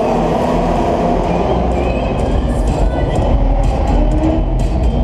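450cc short-track racing motorcycles running laps together, their engines blending into a loud, continuous drone that rises and falls in pitch and echoes round the indoor hall.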